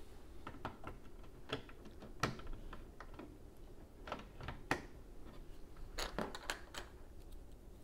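Plastic Lego pieces clicking and clacking as hands pick them up and fit them onto a model, in irregular sharp clicks, the two loudest about two and a quarter and four and three-quarter seconds in.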